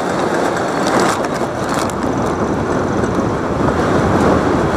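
Steady crowd and game noise at a college sports game, with a few sharp knocks about a second in.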